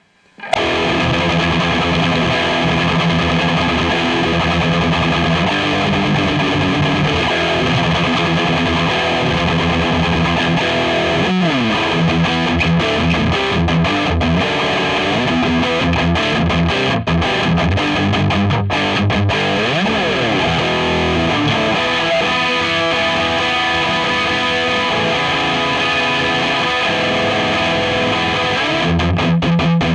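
High-gain distorted electric guitar, an Epiphone Les Paul Custom on its bridge pickup, played through a Digitech RP1000 preset modelling a Marshall JCM800 amp with a Tube Screamer overdrive and EQ. It plays a continuous riff of chugging chords and notes, with a few pitch slides, starting about half a second in.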